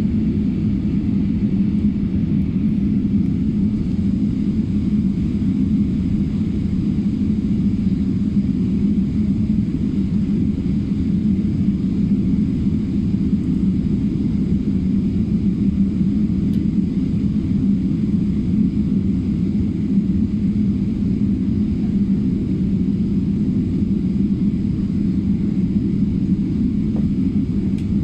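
Boeing 777-200 jet airliner heard from inside the cabin: a steady, loud low rumble of engines and airflow that holds even throughout, with no rise or fall in pitch.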